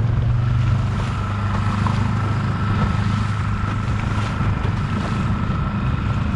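Mercury 6 hp outboard motor running steadily at trolling speed, a low even hum, with wind buffeting the microphone and water around the hull.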